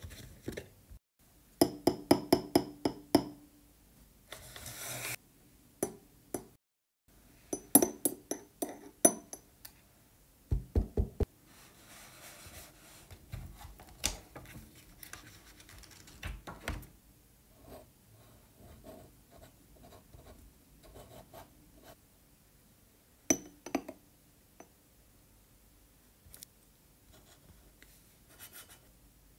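Bursts of quick taps, knocks and clicks of small objects being set down and moved on a tabletop, with softer stretches of a glass dip pen scratching on notebook paper. Short spells of dead silence break in abruptly between some bursts.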